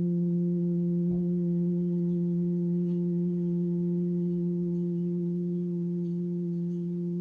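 A woman humming one steady, low note on a long out-breath, as part of a breathing exercise with her hands held over her forehead.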